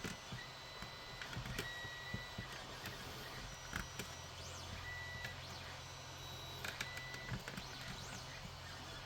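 Faint scattered clicks and light taps of pliers and a wire being handled and pressed into a routing groove, over a steady low hum.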